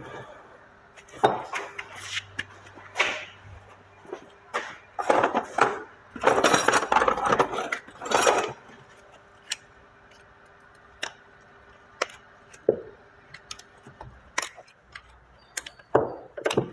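Metal parts of a Honda Accord rear door check being handled and taken apart on a workbench: scattered clinks and knocks, with a couple of seconds of louder scraping and rattling midway.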